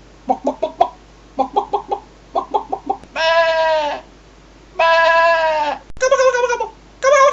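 Goat bleating. First come three quick runs of short bleats, then two long bleats, then two shorter quavering ones near the end.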